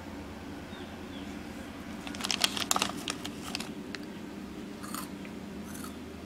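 Foil snack bag of Twisties crinkling as it is handled, a burst of crackling about two seconds in and two short rustles near the end, over a steady low hum.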